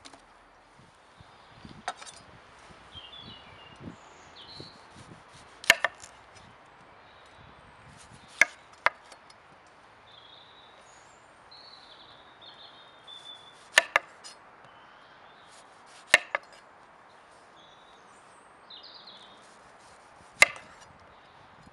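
Chef's knife slicing through a red onion and knocking on a wooden cutting board: sharp single knocks or quick pairs, a few seconds apart.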